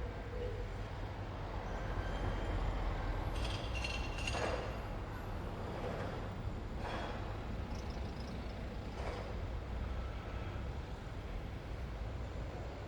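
Street traffic ambience: a steady low rumble of vehicle engines and tyres, with a few brief sharper sounds about four, seven and nine seconds in.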